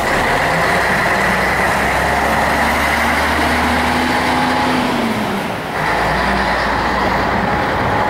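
Tour coach's diesel engine running as the bus passes close by and pulls away, its engine note dropping about five seconds in, over steady street traffic.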